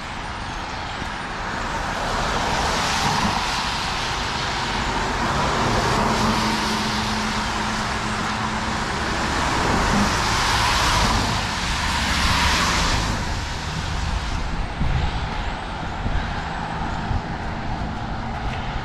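Road traffic passing on a wet street: several cars and a heavier vehicle go by one after another, their tyres hissing on the rain-soaked pavement, each pass swelling and fading, with the loudest pass about two-thirds of the way through. A low engine drone runs under the hiss for a few seconds about a third of the way in.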